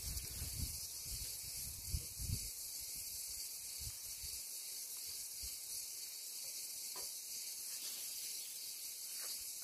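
Steady high hiss, with a few soft low knocks in the first couple of seconds.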